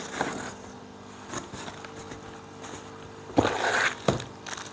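Unboxing handling noise: light taps and knocks of wooden slats, then a louder scraping rustle of the cardboard box being shifted about three and a half seconds in, followed by a single knock.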